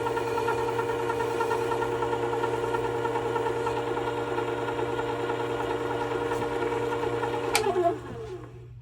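Work Sharp WS3000 sharpener's motor running steadily, its abrasive-covered wheel spinning, with an even mechanical hum. About seven and a half seconds in it is switched off with a click and winds down, its pitch falling as the wheel slows.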